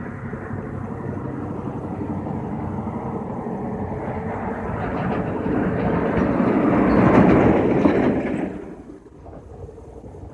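A vehicle passing close by: a rumbling noise that grows louder to a peak about seven seconds in, then falls away sharply about eight and a half seconds in.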